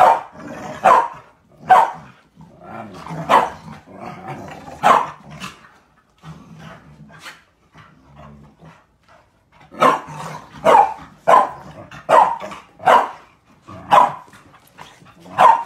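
Several dogs play-fighting, barking sharply with growling between barks. About six seconds in the barking gives way to quieter low growling, then loud barks start again near ten seconds, coming about one and a half a second.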